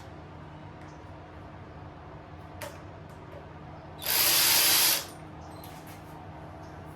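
A hiss of pressurised air lasting about a second, starting about four seconds in. A single click comes a second or so before it, and a steady low hum runs throughout.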